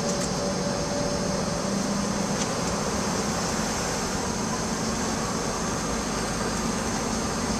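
Steady cabin noise inside a Boeing 757 on the ground: jet engines idling and cabin air-conditioning running, with a faint high whine.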